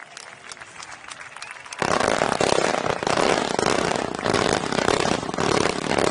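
Fireworks: scattered crackling from fading stars, then about two seconds in a row of ground-level fountains fires at once. It gives a loud, steady rushing hiss full of sharp crackles and pops.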